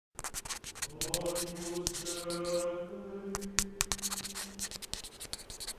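Voices singing plainchant in sustained notes that step from one pitch to the next, under a steady crackle of clicks. It starts abruptly out of silence.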